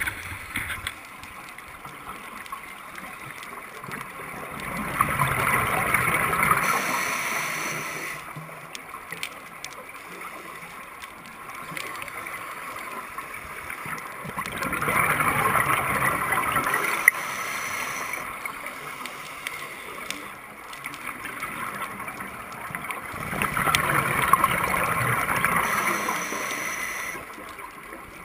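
Scuba regulator exhaust bubbles gurgling underwater as a diver breathes out: three long exhalations about nine seconds apart, with quieter breathing noise between.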